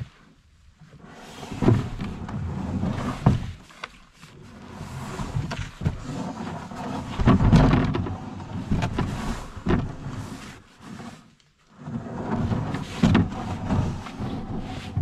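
Old Town Discovery 119 canoe hull being dragged over pine needles and roots: scraping and rumbling in uneven surges, with knocks as it bumps over roots, and short pauses about four seconds in and again near eleven seconds.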